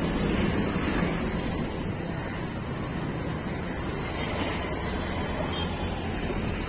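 Steady rushing wind blowing over the microphone outdoors, a fairly loud noisy rumble that eases off slightly after the first second or so.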